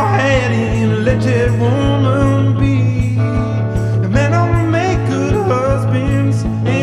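Solo electric guitar blues, played over a steady low drone note with an even beat of low thumps about four a second. A bending, wavering melody line of voice or harmonica runs on top.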